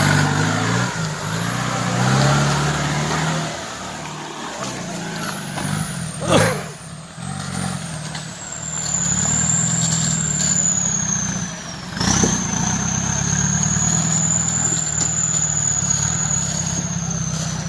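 Off-road 4x4 engine running and revving unevenly, its pitch rising and falling as it works through the course. A high whine drifts up and down throughout, and there is a sudden sharp sound about six seconds in.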